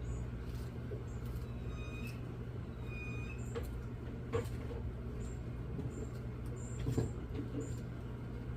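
Steady low hum with a few faint clicks or taps scattered through it.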